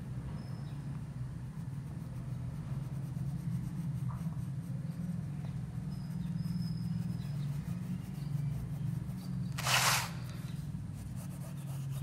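Graphite pencil drawing on sketchbook paper: faint scratching strokes over a steady low hum, with one short, loud scratchy rustle about ten seconds in.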